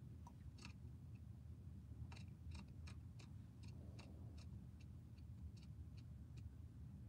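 Faint, irregular clicking from computer use, a dozen or more sharp clicks a few tenths of a second apart, thickest after the first couple of seconds, over a low steady hum.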